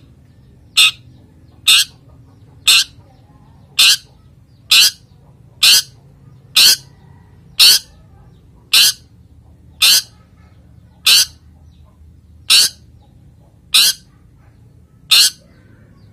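A male cendet (long-tailed shrike) in breeding condition repeating its short, sharp 'toet' call about once a second, the call used as a lure to set other cendets singing.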